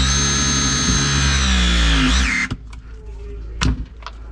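Battery-powered pipe press tool's motor whining steadily as its jaws crimp a copper press fitting. The whine rises briefly in pitch and cuts off about two and a half seconds in, as the press cycle ends. A single sharp click follows about a second later.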